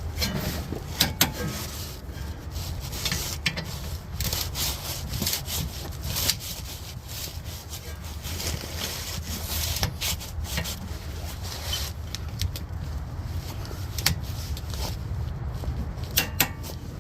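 Hand-tool work on a Ford Escape's rear trailing-arm bushing: rubbing and scraping broken by scattered sharp metallic clicks and knocks, over a steady low hum.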